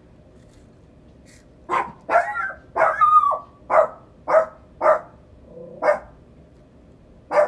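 A dog barking repeatedly: a quick run of short, sharp barks starting about a second and a half in, about two a second, with a brief pause near the end.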